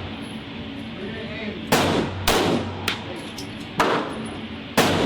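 9mm pistol firing 124-grain match rounds, slow aimed fire: four loud shots at uneven spacing, with a fainter crack between the second and third, each with a short ringing tail.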